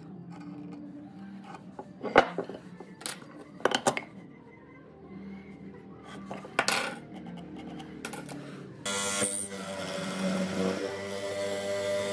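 Workshop tools and wood knocking, with several separate sharp knocks. About nine seconds in, a power tool starts up and runs steadily.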